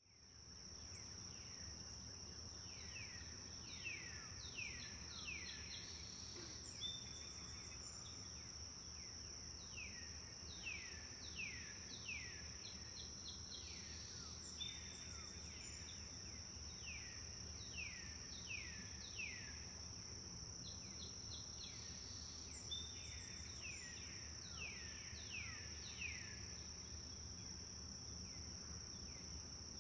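Forest ambience: a steady high-pitched insect drone, with a songbird repeatedly singing short phrases of quick descending notes and a few brief higher chirps, over a low steady rumble. The sound fades in right at the start.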